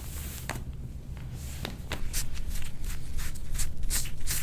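A soft-tissue scraping tool (gua sha style) drawn over skin in short repeated strokes. It makes a series of brushing scrapes, sparse at first, then about three a second and louder from about two seconds in.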